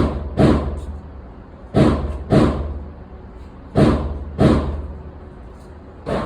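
Pistol shots from an S&W M&P Bodyguard .380 on an indoor range: seven sharp reports with short echoing tails, fired mostly in pairs about half a second apart, with a pause of a second or more between pairs.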